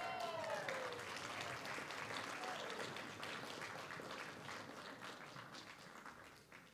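Audience applauding, with a few high whoops of cheering in the first second; the clapping dies away near the end.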